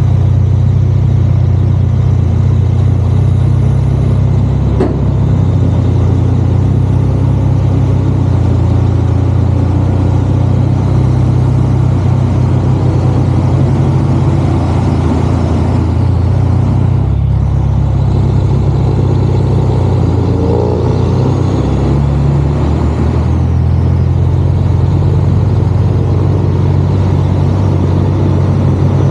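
Kenworth C500 heavy truck's diesel engine running steadily, a deep even drone.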